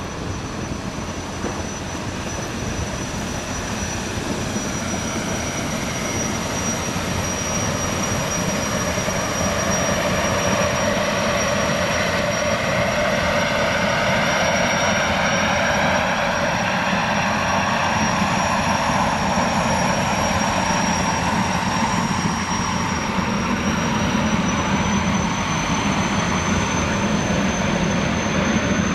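Boeing 929 Jetfoil's gas-turbine engines and waterjets running, a steady high whine over a rushing noise of engine and water. It grows louder over the first several seconds as the vessel passes, then holds.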